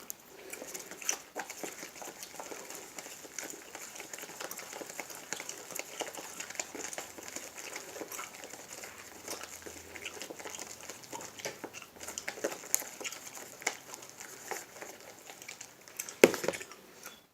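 Sticky homemade slime of glue, shaving foam and laundry detergent being stirred and worked by hand in a bowl: a run of small irregular clicks and crackles, with one louder knock about 16 seconds in.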